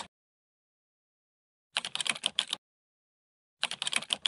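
Typing sound effect: two short runs of rapid keystroke clicks, about ten a second, with dead silence before and between them.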